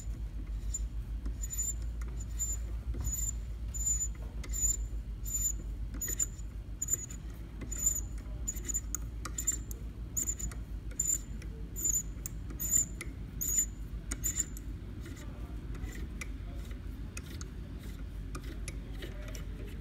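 Small machine running with a steady low hum, under a short high chirp repeating about one and a half times a second that stops about fourteen seconds in.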